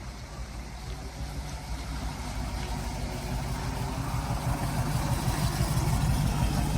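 1956 Ford F-250 truck engine running, growing steadily louder across the few seconds.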